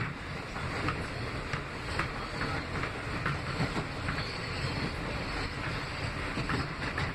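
Inside a New York City subway R160B car with Alstom propulsion running along the track: a steady rumble of steel wheels on rail, broken by irregular sharp clicks about every half second to a second as the wheels cross rail joints.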